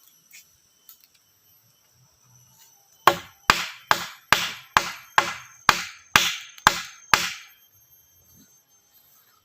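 A hand tool striking wood ten times in quick succession, a little over two blows a second, each blow sharp with a brief ring, as in chopping or hammering while building a tree house.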